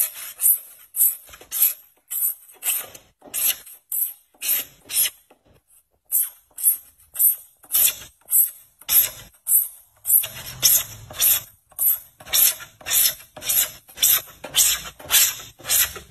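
A flat blade scraping the plastic lens of a car headlight, shaving off its hazed outer layer, in rhythmic strokes about two a second with a brief pause about six seconds in.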